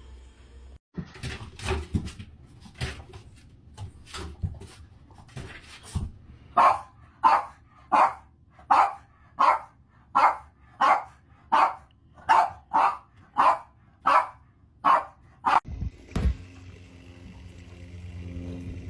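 A dog barking over and over in a steady run of about fifteen loud barks, a little more than a second apart at most, after some fainter, scattered sharp sounds.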